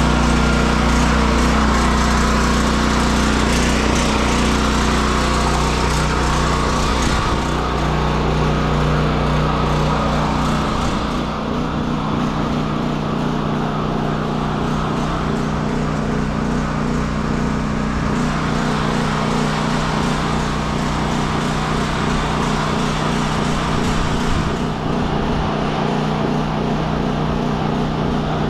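Generac GP3250 portable generator's single-cylinder engine running steadily at an even pitch. A broad hiss lies over it, and its upper part thins out about eleven seconds in.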